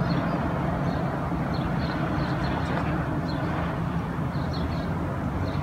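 Steady low rumble of distant city traffic, with faint high chirps scattered through it.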